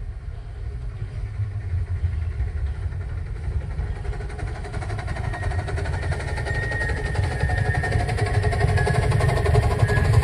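A small-gauge live-steam locomotive approaching out of sight, its running and rumble growing steadily louder as it nears.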